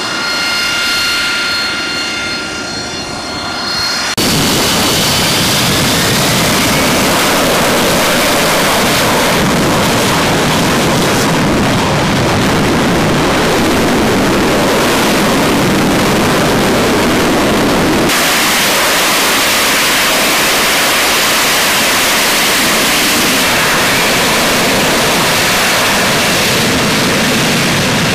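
AV-8B Harrier II jet engine. For about four seconds it is a high whine with steady tones as the jet taxis. It then changes suddenly to a loud, even roar under takeoff power on the runway. About eighteen seconds in it changes again to the steady roar of the jet hovering for a vertical landing.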